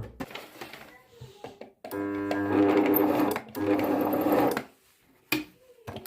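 Toyota Jeans sewing machine's electric motor humming twice, about a second and a half each time, while it does not turn and the needle stays still: the motor is powered but stalled. A brief click follows near the end.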